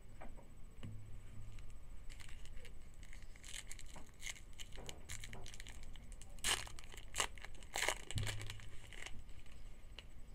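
Trading card pack wrapper being torn open and crinkled by hand, a run of irregular crackles and rustles between packs.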